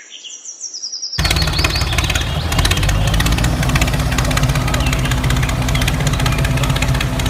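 Engine running steadily with a dense low chugging, cutting in abruptly about a second in. Before it, faint bird chirps.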